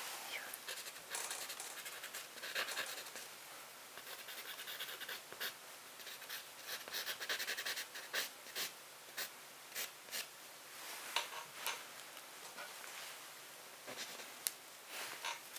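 Charcoal scratching and rubbing on canvas, with fingertips smudging the marks. Short dry strokes and small ticks come in irregular runs, thickest in the middle and thinning to scattered ticks near the end.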